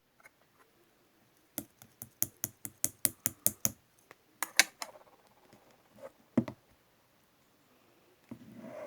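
Slime play: a quick run of sharp clicking taps, about five a second, then a few louder single clicks and a short soft rustle near the end.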